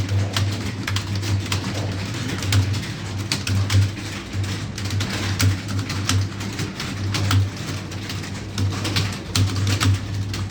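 Computer keyboard keys being typed on, an irregular run of sharp clicks, over a low hum that swells and fades.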